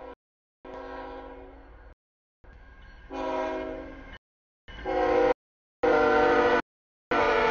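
CSX freight locomotive's air horn sounding a series of blasts for a grade crossing, several notes sounding together as a chord, with short breaks between blasts. It grows louder as the train draws near, with a low rumble from the train beneath.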